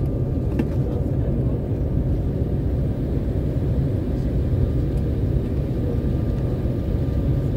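Steady low rumble of an airliner's cabin as the jet taxis on the ground, with a faint steady high tone running through it.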